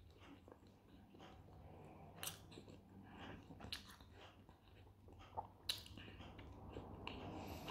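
A person chewing a bite of pljeskavica in bread with the mouth closed, quiet and close up, with a few sharp clicks about two, four and six seconds in.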